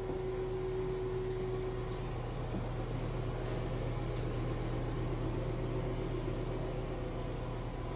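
Steady hum and whir of a bathroom exhaust fan running.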